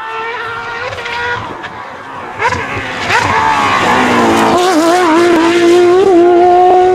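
Porsche 911 GT3 rally car's flat-six engine at high revs. About two and a half seconds in it gets much louder, its pitch sweeps down, then it holds a steady high note, loudest near the end.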